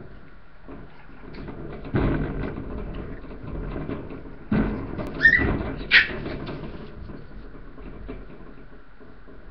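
Boston terrier puppies playing in a wire crate lined with newspaper: steady rustling and clattering, with two heavy thumps about two and four and a half seconds in, then two short high squeals about a second apart.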